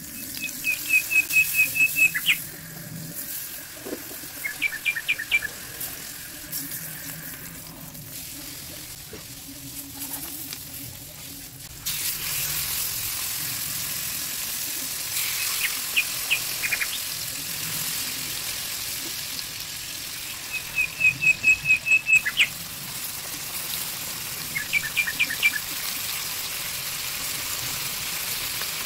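Boneless chicken thighs sizzling in oil and margarine in a grill pan, the sizzle stepping up louder about twelve seconds in as the meat goes in. Over it a bird chirps in quick high trills several times.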